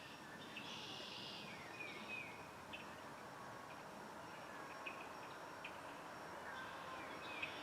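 Faint, scattered songbird chirps and short calls, a few sliding down in pitch, over a soft outdoor hiss.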